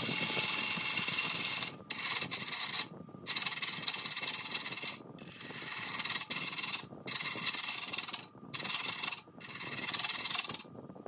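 A bowl gouge cutting the inside of a spinning maple burl bowl on a wood lathe, a steady hissing, rasping shear of shavings. It breaks off in several short pauses as the tool leaves the wood, and the cutting stops near the end.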